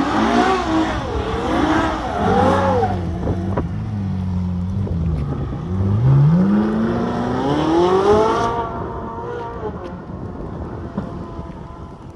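Ferrari sliding through donuts: tyres squealing in wavering tones over the engine, then a steady low engine note, then one long rising rev as the car accelerates away and fades.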